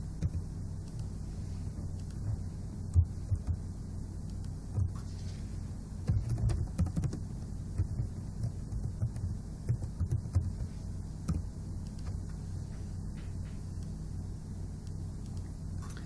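Computer keyboard being typed on in short runs of muffled key taps, over a steady low electrical hum.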